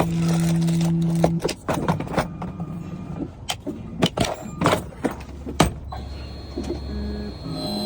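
Clatter of tools and keys being handled and put away: a run of short clicks and knocks, with a steady low hum for the first second and a half. Music with stepped tones comes in near the end.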